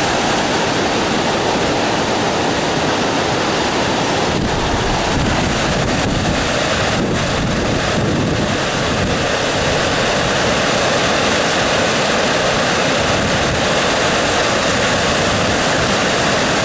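Steady loud rushing of wind and heavy rain, with the wind buffeting the microphone.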